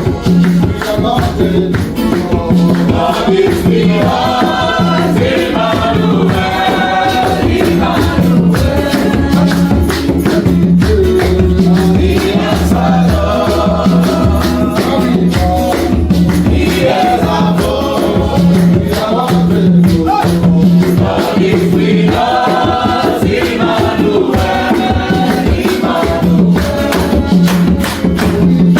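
Gospel worship music: voices singing over a steady beat with light percussion.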